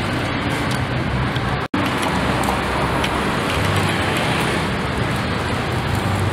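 Water splashing into a plastic basin, then, after an abrupt cut to silence for an instant, steady street traffic noise.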